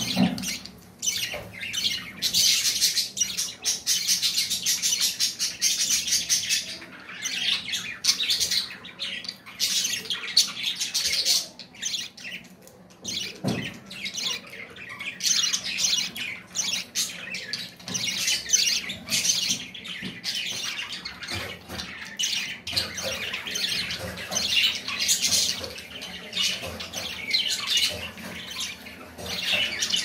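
Budgerigars chattering and squawking: a dense run of rapid, high-pitched chirps with a few brief lulls.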